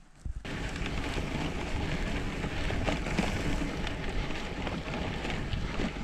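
Wind buffeting an action camera's microphone together with the rumble and rattle of a mountain bike riding over bumpy grass, with scattered knocks from the bike. The noise starts abruptly about half a second in and then runs on steadily.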